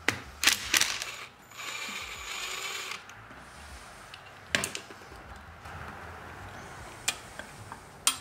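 Cordless drill-driver with a Torx T30 security bit running steadily for about a second and a half, backing a screw out of the electric motor's resolver cover. Sharp clicks of the bit and screw come just before it, with a few single knocks later as the screw and cover are handled.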